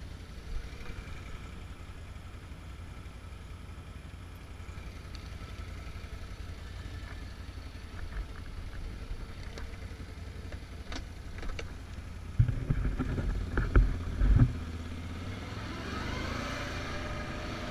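Can-Am Outlander ATV engine idling steadily, with a cluster of loud knocks and thumps about two-thirds of the way through. Near the end the engine note rises as the quad accelerates away.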